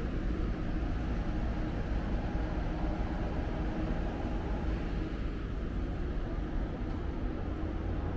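Amtrak Auto Train standing at the station, giving off a steady low rumble and hum that holds even throughout.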